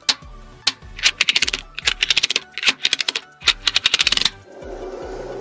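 Small magnetic balls clicking and snapping against each other in quick rattling runs as blocks of them are pressed into place, with a softer scraping near the end. Background music plays underneath.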